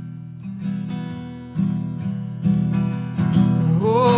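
Acoustic guitar played live, with chords and picked notes ringing on and growing louder after about a second and a half. A sung note with vibrato comes in near the end.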